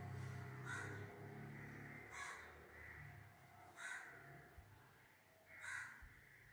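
A crow cawing four times, about every one and a half to two seconds, faint, over a low drone that dies away in the first two seconds.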